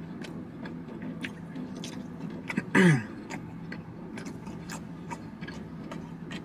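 A person chewing a sauced fried chicken wing close to the mic, with wet mouth clicks and smacks throughout. About three seconds in, a short hum that falls in pitch.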